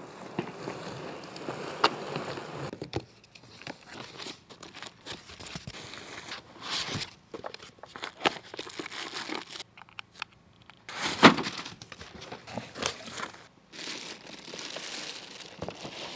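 Plastic packaging crinkling and rustling as items are unpacked and handled, with scattered clicks and knocks. The loudest knock comes about eleven seconds in.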